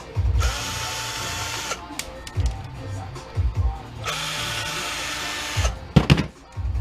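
A small electric motor runs twice for about a second and a half each time, its pitch rising as it spins up and then holding steady. Sharp knocks follow near the end.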